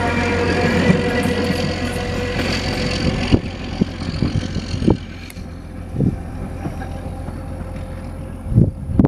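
Diesel engine of a ČSD M 131.1 (class 831) railbus running as the railcar pulls away, its drone fading after about three seconds as it recedes. Several low thumps of wind on the microphone come in over the fading engine, the strongest near the end.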